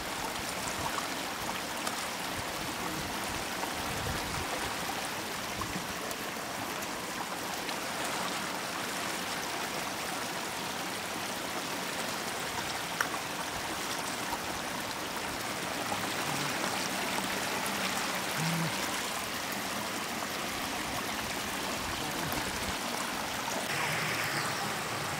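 Shallow floodwater rushing steadily over a road and churning around a wicker basket held against the current.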